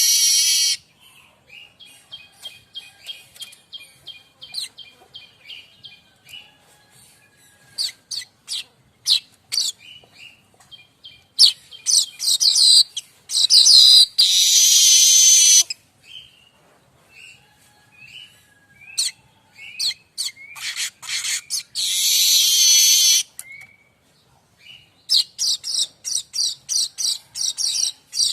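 Streaked weaver (manyar kembang) singing a varied song of short high chips and chattering runs. These are broken by long, loud wheezing hisses of a second or two, several times over. Near the end comes a fast run of ticking notes.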